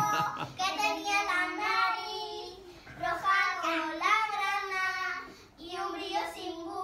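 Young children singing a song, in drawn-out notes with short breaks between phrases.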